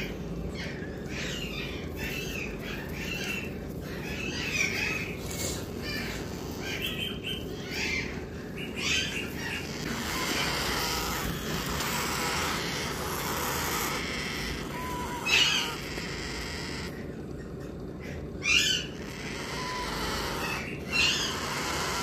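Parrot chicks giving begging calls while being hand-fed from a syringe: repeated short squeaky calls, with three louder calls in the second half, over a steady low hum.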